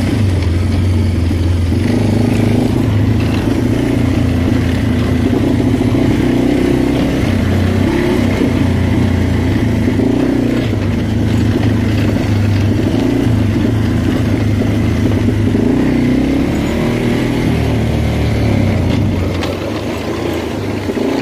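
ATV engine running under load while riding a rough dirt trail, its note rising and falling with the throttle.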